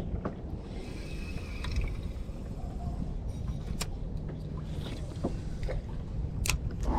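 Wind rumbling on the microphone, with scattered sharp clicks and knocks, the loudest near the middle and near the end.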